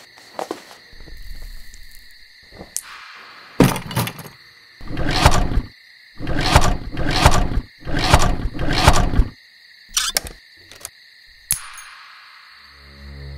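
A vintage Vespa scooter being kick-started over and over, about six strokes in quick succession, without the engine catching: the scooter won't start. A few sharp clicks follow, and a low music drone comes in near the end.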